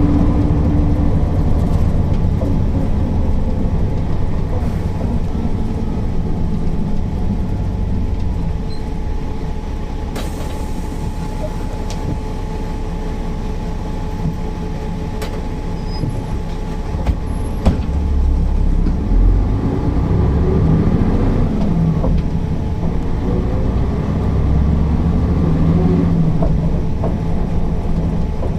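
Mercedes-Benz O408 city bus's straight-six diesel engine running under way: it eases off through the middle and pulls harder again in the second half. A short hiss sounds about ten seconds in, and there are a few clicks later.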